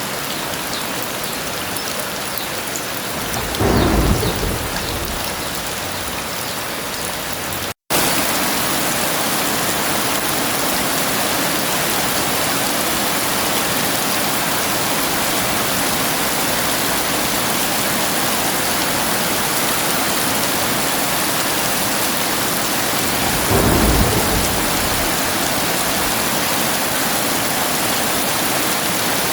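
Heavy rain pouring steadily, with two short rumbles of thunder: one about four seconds in and another about twenty-four seconds in. A split-second gap about eight seconds in, after which the rain comes back slightly louder.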